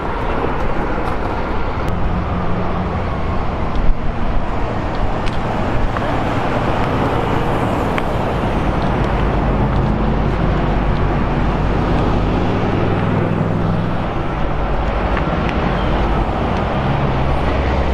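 A vehicle engine running steadily under a continuous rushing noise, with a few faint sharp clicks; a louder one comes about four seconds in.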